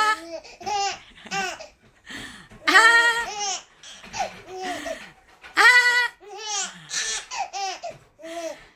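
Four-month-old baby laughing and squealing in a run of short, high-pitched bursts, loudest about three seconds in and again about six seconds in.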